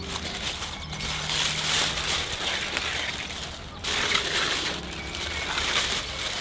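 Aluminium foil crinkling as it is peeled back off a hot roasting pan, in two spells of rustling with a short break about four seconds in.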